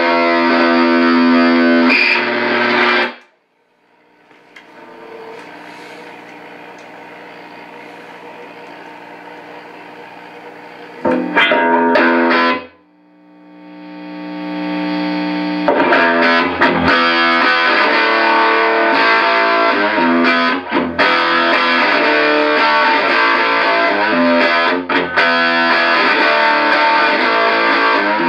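Electric guitar played through a 1458 op-amp Muff Fuzz pedal into a 1959 Guild 66-J amp, with a fuzzed, distorted tone. The playing stops about three seconds in and gives way to a quiet stretch. A short loud burst comes near the middle, then a held note swells up, and steady fuzzed playing runs through the rest.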